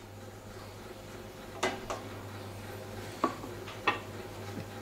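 A few sharp clinks of metal kitchenware, a pan and utensils being handled at the stove, over a steady low hum.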